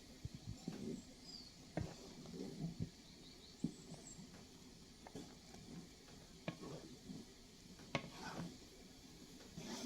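Faint, irregular light knocks and soft scrapes of a spoon working in a pot of cooking strawberry jam.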